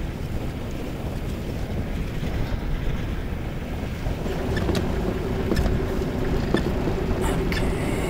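Steady low rumble of a vehicle and wind, with a faint steady hum joining about four seconds in and a few light clicks in the second half.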